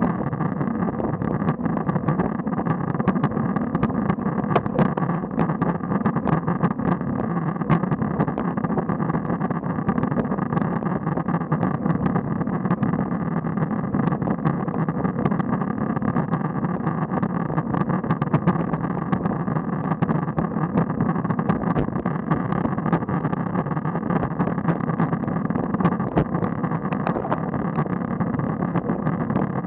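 Steady wind and road noise on a bicycle-mounted action camera riding with a group of road cyclists, sprinkled with frequent small clicks and knocks from the bike and road.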